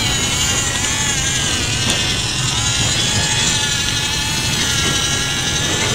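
Electric track motors and plastic gearboxes of a Huina 1551 radio-controlled toy excavator whining as it crawls over bumpy, muddy ground, the whine wavering in pitch as the load changes.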